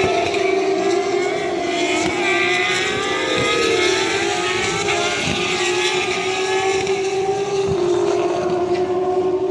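Turismo Carretera race car engines running at high revs on the track, a steady high-pitched note with overlapping tones that rise and fall slightly as the cars pass.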